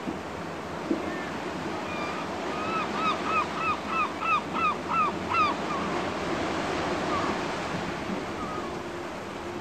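Surf breaking and washing up a sandy beach. Over it a bird gives a run of about ten rising-and-falling calls, about three a second and growing louder, from about two to five and a half seconds in, with a few single calls later.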